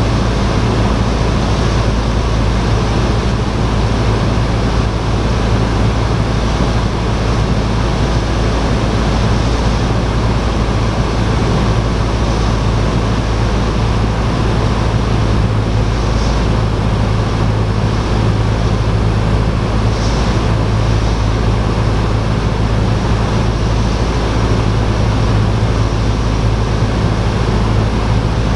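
Piston engine and propeller of a light single-engine airplane droning steadily in flight, heard inside the cockpit as a loud, even low hum under a rushing noise.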